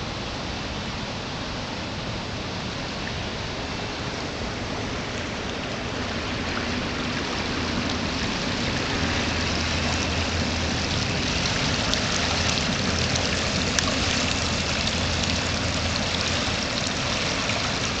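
Steady rushing of a river in flood, growing louder about halfway through.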